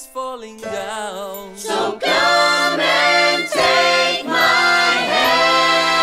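Singing voices: a short sung phrase with gaps, then from about two seconds in several voices singing together over a held low note, in phrases that break about once a second.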